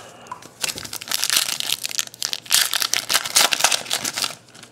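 Wrapper of a 2012-13 Panini Prizm basketball card pack being torn open and crinkled by hand. A dense crackling starts about half a second in, comes in two long stretches, and stops just before the end.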